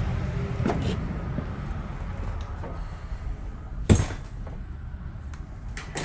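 A single sharp knock about four seconds in, with a few lighter clicks, over a low rumble that fades over the first few seconds.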